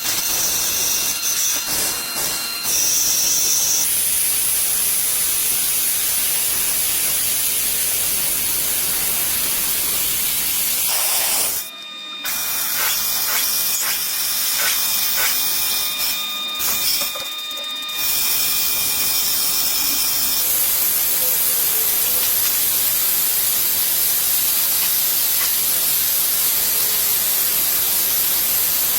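Steady loud hissing noise, broken by several abrupt cuts where its tone shifts.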